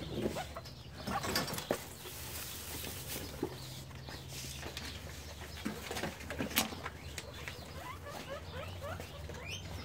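Guinea pigs moving about in loose hay and wood-shaving bedding: soft rustling with scattered light clicks.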